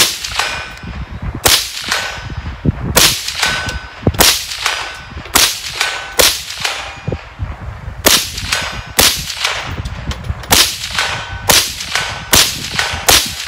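Kel-Tec CMR-30 semi-automatic carbine in .22 WMR firing a string of about eighteen rapid shots, one or two a second, with a pause of nearly two seconds about six seconds in. A short ringing ping follows several of the cracks.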